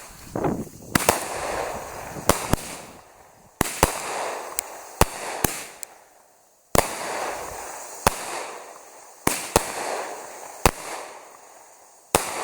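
Consumer firework, Showtime Fireworks' Hot and Spicy, firing a rapid string of sharp bangs, about a dozen, each trailing off in a short rush of noise.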